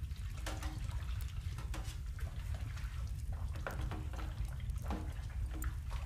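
Soapy dishwater being sloshed and splashed in irregular bursts, with drips, over a steady low rumble.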